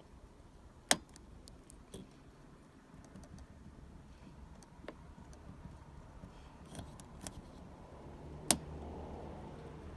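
Lishi pick working the wafers of a 2001 Ford Mustang's door lock: faint metallic ticks and scraping, with two sharp clicks, about a second in and near the end.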